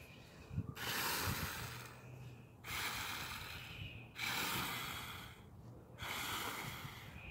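A person breathing heavily close to the microphone: four long, hissy breaths about a second and a half each, with short pauses between them.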